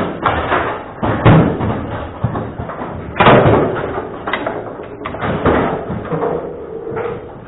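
Table football in play: a run of sharp knocks and slams as the ball and rods strike the table, the loudest hits about a second in and just after three seconds in.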